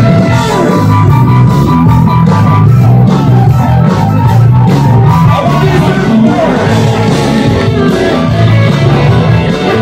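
A rock band playing live and loud, with electric guitars over a steady beat.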